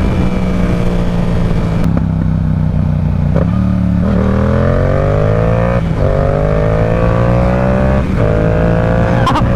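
Yamaha R7's 689 cc parallel-twin engine pulling hard through the gears, its pitch climbing and dropping back three times with quick upshifts. Heavy wind rush on the helmet microphone underneath.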